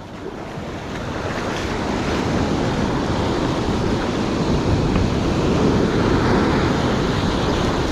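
Ocean surf breaking and washing up the beach, swelling over the first couple of seconds and then running on steadily.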